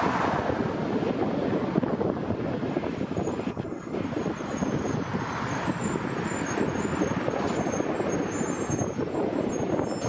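Jet airliner engines giving a steady roar, with a faint, wavering high whine above it from about three seconds in.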